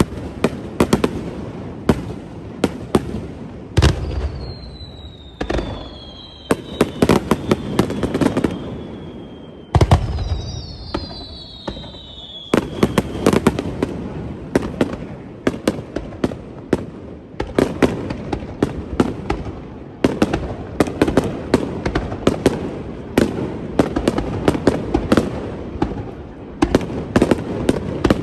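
Fireworks display: dense, rapid crackling pops throughout, with two heavy booms about four and ten seconds in, each followed by a high whistle that slowly falls in pitch over a few seconds.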